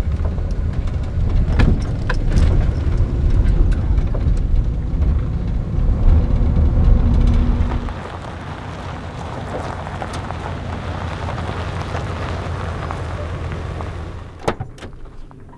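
A van driving: a heavy, low engine and road rumble for about eight seconds, then a sudden drop to a lighter, even hiss, with a single click near the end.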